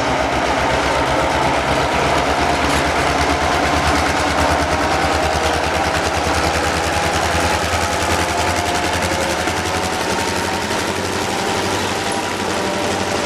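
Diesel locomotives hauling a loaded sugar beet train pass close by, with a loud, steady engine throb. It eases slightly near the end as the locomotives pass and the wagons follow.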